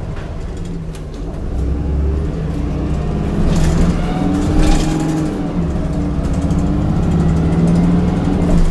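Heuliez GX 337 city bus engine pulling as the bus accelerates, its pitch climbing, dipping about five seconds in as the ZF automatic gearbox shifts up, then climbing again, heard from inside the bus.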